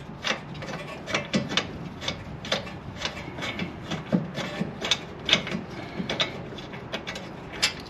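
Rear disc-brake caliper and its bracket being wiggled loose off the rotor: irregular metal clicks, knocks and scraping.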